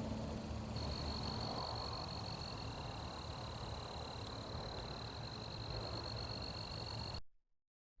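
Outdoor ambience with a steady, unbroken high-pitched trill of calling insects, which joins about a second in over a low rumble, and then cuts off suddenly near the end.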